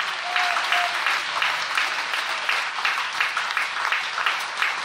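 Congregation clapping in unison as a hand clap of worship, a steady beat of about three claps a second.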